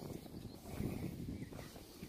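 Faint footsteps on a concrete sidewalk, a few soft irregular thumps.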